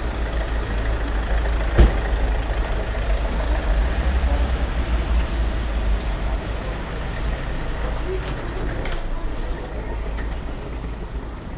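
Steady rumble of road traffic and idling vehicles along an airport kerbside, with a single sharp knock about two seconds in. The deep rumble eases a little in the last few seconds.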